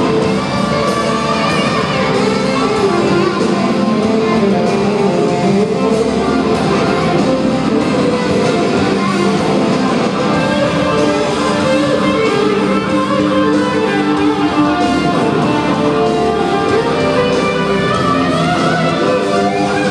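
A live country band playing loudly, with guitars to the fore, heard from far back in an arena crowd.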